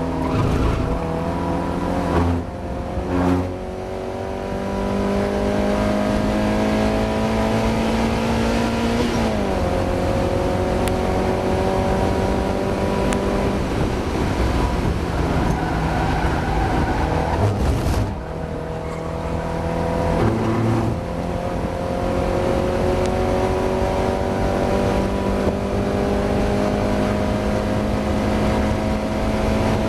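Mazda MX-5 race car engine accelerating hard, its revs climbing and then falling sharply about nine seconds in. It then holds steady revs, dips briefly around eighteen seconds, and climbs again.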